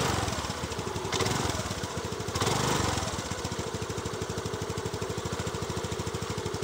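Small scooter engine running just after starting, given light throttle: it speeds up briefly about a second in and again around two and a half seconds in, then settles into an even, rapid idle.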